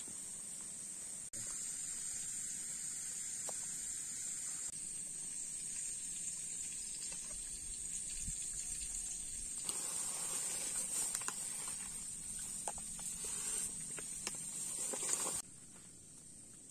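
Insects chirring in a steady high-pitched drone, with scattered clicks and rougher noise over the middle part. The level drops suddenly near the end.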